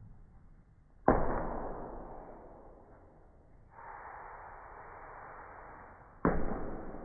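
Two hard impacts of a basketball on a Pop-A-Shot arcade hoop, about a second in and again about five seconds later, each ringing out over a second or two. A steady rushing noise runs in between.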